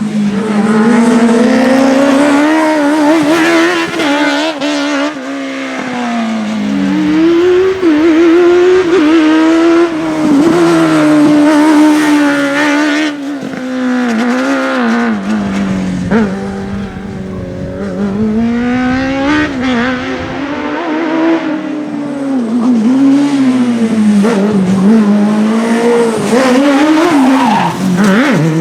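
Race car's engine revving hard, its pitch climbing and then dropping again and again as it shifts gear and brakes through a slalom course.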